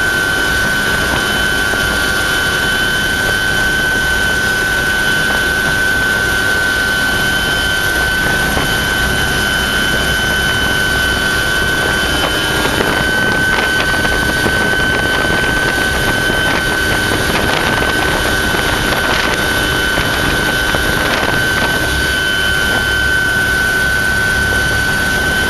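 Small helicopter's engine and rotor heard from inside the cabin during takeoff and climb-out: a loud, steady drone with a high whine held at one pitch.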